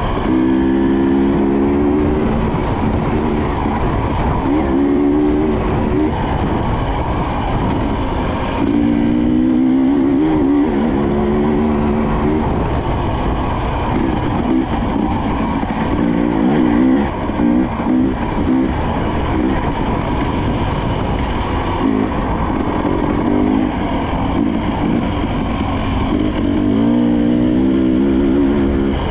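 Husqvarna TE 300i two-stroke dirt bike engine being ridden on a trail, revving up and down in repeated bursts over a steady rushing noise.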